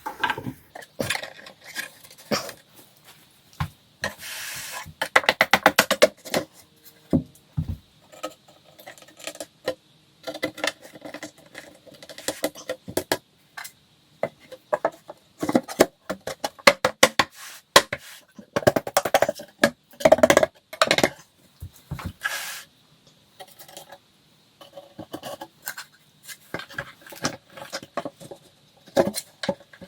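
Flat-pack nightstand parts and hardware being handled while a joint is taken apart: scattered knocks, clicks and scrapes, with a fast run of even clicks about five seconds in.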